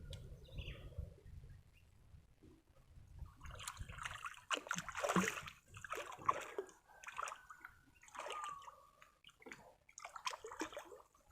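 Water sloshing and splashing in a series of irregular bursts, after a quieter first few seconds.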